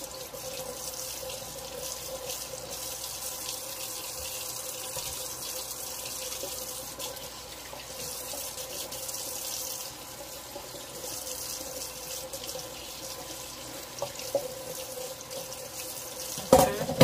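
Kitchen tap running steadily into a stainless steel sink. A short louder sound comes near the end.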